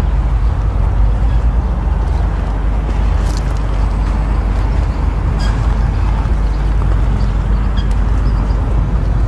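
Wind buffeting the microphone: a steady, fluttering low rumble, with a few faint clicks.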